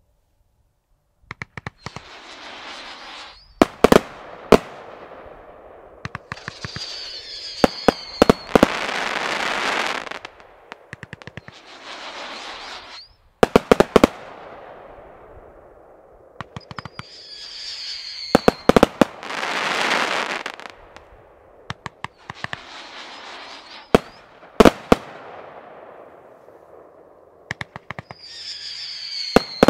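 A consumer fireworks cake firing a sequence of shots, starting after about a second of silence. Clusters of sharp cracks alternate with stretches of hissing crackle, and a high whistle that falls slightly in pitch sounds three times.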